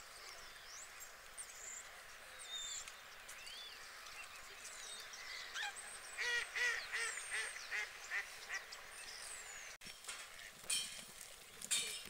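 White domestic geese honking: a quick run of about eight calls about halfway through, with thin high chirps and whistles before it.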